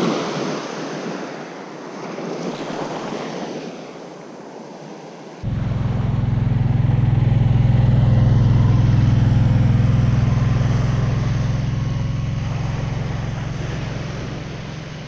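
Surf washing on the shore. About five seconds in, that gives way abruptly to the low engine hum of a John Deere Gator side-by-side utility vehicle driving past on the sand, swelling to its loudest midway and slowly fading.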